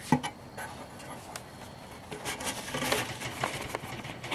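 Handling noise: a sharp knock just after the start, then a run of light clicks and small rattles about two to four seconds in.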